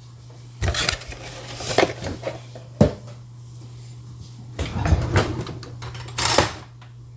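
A handful of separate knocks and clatters of cookware and utensils being handled, over a steady low hum.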